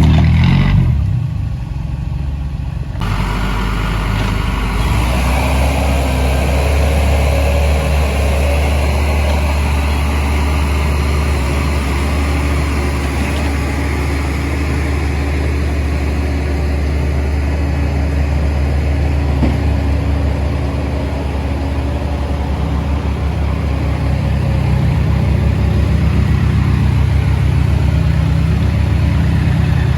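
Heavy diesel engine running steadily with a deep low drone, from the backhoe or the stuck lorry it is pulling.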